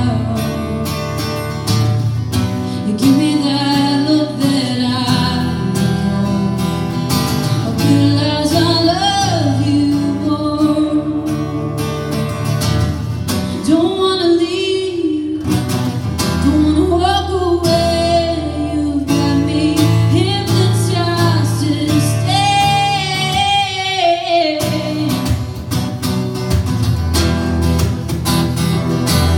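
A woman singing live to a strummed acoustic guitar; the voice stops about 25 seconds in and the guitar plays on alone.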